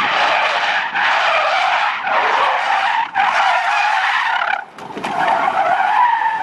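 Car tyres screeching as a sedan drifts sideways, a run of long squeals of about a second each with brief breaks between them and a short drop-out about five seconds in.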